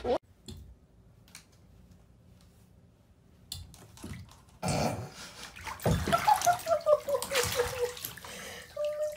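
Water splashing and sloshing in a filled bathtub as a cat steps its paws into it, starting about four and a half seconds in after a few quiet seconds. A long wavering cry that falls in pitch runs over the splashing.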